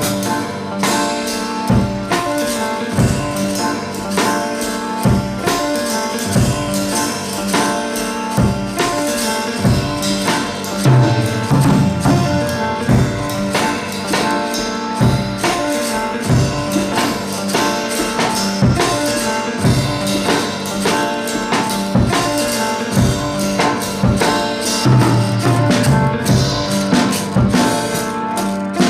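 Background music: an instrumental passage with held tones over a steady percussion beat.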